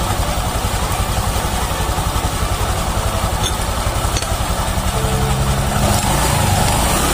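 Honda Vario 150 scooter's single-cylinder engine and CVT idling steadily, heard close up at the CVT housing. It runs smoothly, with no rough grinding or knocking now that the CVT pulley has been cleaned and reassembled.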